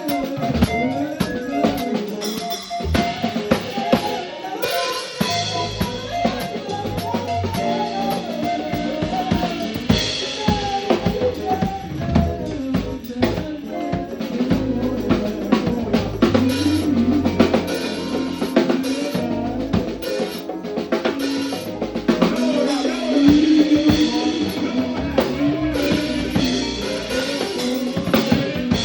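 Live band playing an instrumental passage, the drum kit to the fore with steady snare, rimshot and bass drum hits over sustained low bass notes and melodic lines.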